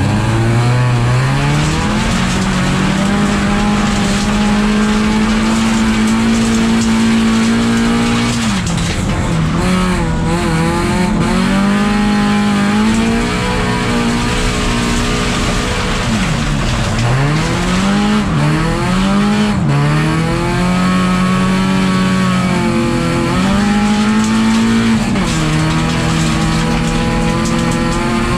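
A race car's engine heard from inside the stripped cabin, driven hard on a dirt track: the revs are held high, then drop and climb again several times with gear changes and lifts for corners, with a deep dip about two-thirds of the way through. Tyre noise from the loose surface runs underneath.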